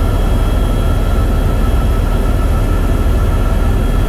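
Helicopter engine and rotor noise heard inside the cabin in flight: a loud, steady low rumble with a thin, steady whine above it.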